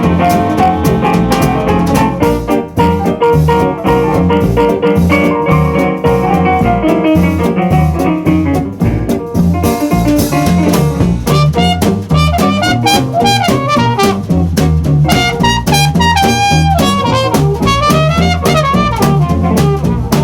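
Swing jazz band music with brass and saxophone over a steady drum-kit beat; a higher horn melody with bends comes in about halfway through.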